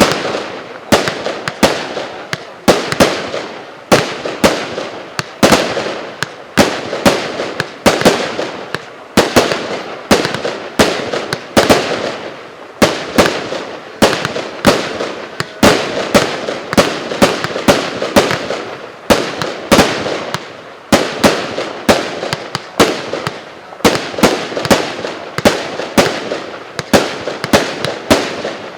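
A 100-shot, 0.8-inch consumer firework cake firing shot after shot in a rapid string, about one to two sharp launches and bursts a second, each followed by a crackling tail.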